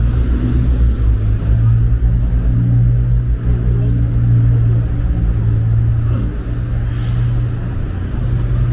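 Street ambience dominated by a loud, steady low rumble of motor traffic.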